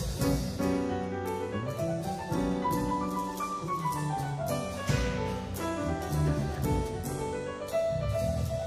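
A nonet of nine players performing a busy passage of chamber music, with many quick, sharply attacked notes over a low bass line.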